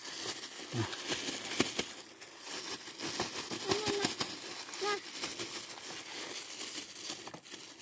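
Crinkling and scattered crackles of something being handled as food is got ready for a pet monkey, with a couple of short vocal sounds about four and five seconds in.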